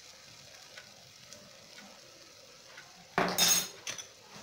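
Rice toasting in oil in an aluminium pressure cooker, sizzling faintly with small ticks. About three seconds in, a loud, scratchy burst of the spoon stirring through the rice in the pot, then a few shorter scrapes.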